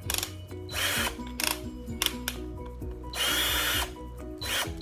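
Stanley 18 V cordless hammer drill run off the load in short trigger pulls: the motor whirs up and stops three times, the longest burst a little past the middle.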